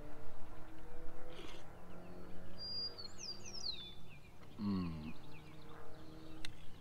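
A songbird whistles a few quick falling notes about three seconds in, over faint background music. A man gives a short, low, falling vocal sound, like a satisfied 'mm', about two-thirds of the way through, and a metal spoon taps a plastic soup bowl a couple of times.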